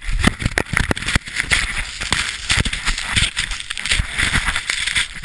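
Helmet-camera audio from inside a moving avalanche: a dense rushing hiss of churning snow, crowded with rapid irregular knocks and crackles as snow and ice strike the helmet and camera, over a low rumble.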